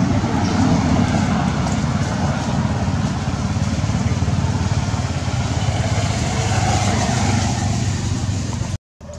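Loud, steady engine and road noise from nearby motor traffic, cutting off abruptly near the end.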